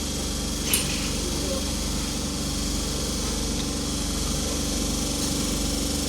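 Class 323 electric multiple unit standing at the platform, its equipment giving a steady hum with a single sharp click about a second in.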